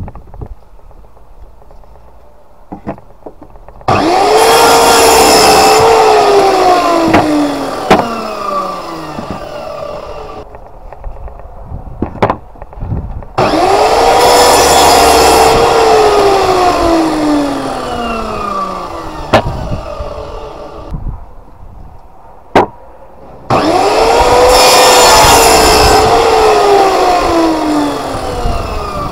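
Sliding compound mitre saw cutting timber boards three times: each time the motor starts with a sudden whine, cuts, and then winds down slowly as the blade coasts to a stop. A few sharp knocks in between.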